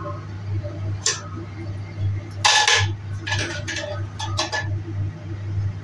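Clicks and clinks of plumbing fittings being handled at a wall-pipe angle valve, with a louder, longer rattle about two and a half seconds in and a quick run of sharp clicks after it, over a low steady hum.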